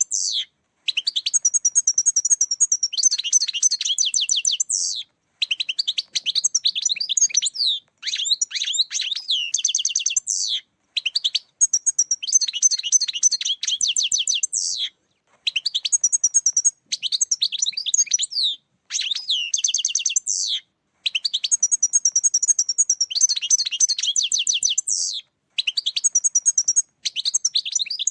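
European goldfinch song, the lure call used to catch goldfinches: rapid, tinkling twittering phrases of a couple of seconds each, about ten of them, separated by brief pauses.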